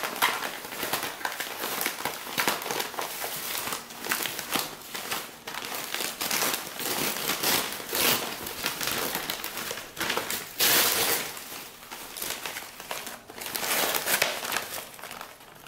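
Newspaper wrapping crinkling and rustling in irregular bursts as it is pulled open and unfolded by hand, with the loudest crumple about two-thirds of the way through.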